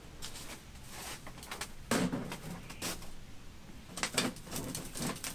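Metal clunks and scrapes of a stovepipe section being worked onto the collar of a lightweight wood stove, a few separate knocks about two, three and four seconds in.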